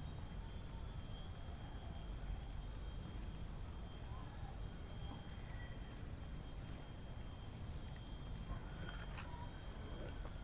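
Insects, crickets among them, chirping steadily in high, thin tones, with a short run of three or four quick high chirps every few seconds.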